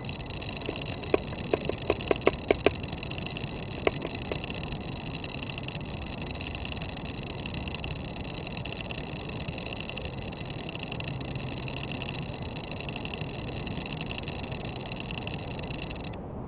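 Steady low hiss with a thin, high-pitched electronic whine from the crashed quadcopter's camera gear lying in the grass. A quick run of small clicks comes between about one and three seconds in, with one more near four seconds, and the whine cuts out near the end.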